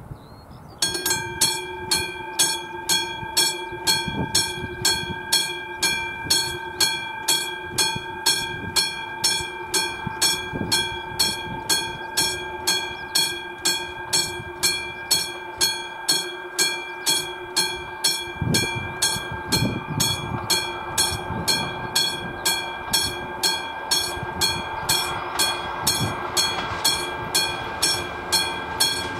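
Classic electromechanical bell of an AŽD 97 level-crossing warning signal, starting about a second in and ringing steadily at about two strokes a second: the crossing has been activated for an approaching train.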